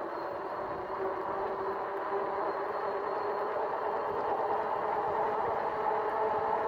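RadRover electric fat-tyre bike riding along pavement and speeding up: a steady hum of several tones from its rear hub motor and tyres, slowly growing louder.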